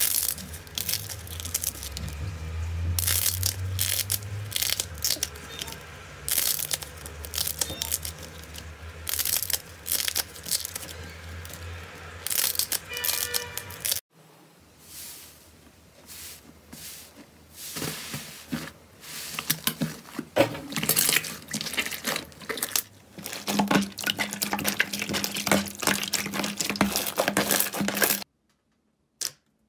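Slime being squeezed, poked and pulled by hands: sticky crackling, popping and tearing sounds, with a low hum underneath. The crackling stops near the end, leaving only a few clicks.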